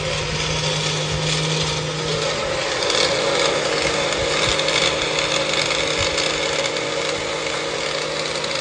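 NutriPro personal blender running steadily, its cup pressed down on the motor base, blending a liquid. The motor cuts off suddenly near the end.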